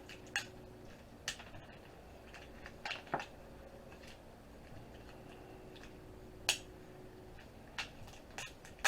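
Scattered sharp clicks and taps, about eight over the span, of small metal and plastic parts and a hand tool being worked while the Zip drive's magnet assembly is pried apart.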